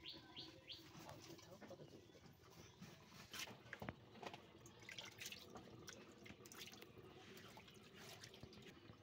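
Near silence, with faint scattered ticks and small clicks and two sharper clicks a few seconds in.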